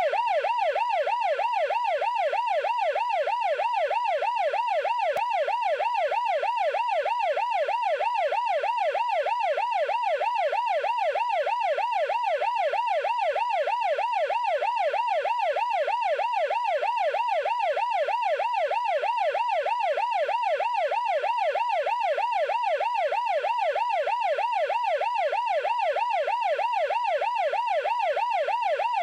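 Emergency vehicle siren in a fast yelp, its pitch sweeping up and down a couple of times a second without a break, at an even loudness.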